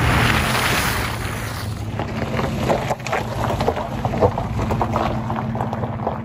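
Toyota Tacoma pickup truck driving through a muddy puddle: its engine running steadily under a loud splash of water that dies away about two seconds in. Then the tyres crunch and pop over gravel and stones as the truck rolls directly overhead.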